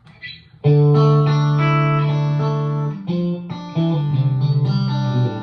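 Electric guitar played through a Suhr Badger amp: a strummed chord starts about a second in and rings out, followed by two more sustained chords. The signal runs through a long cable and a large pedalboard with a Suhr buffer at its front.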